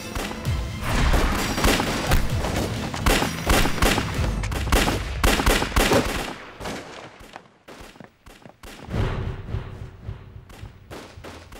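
Dubbed gunfire in a staged firefight: a rapid, dense volley of shots that thins to scattered single shots about halfway through, with a low music drone under the later part.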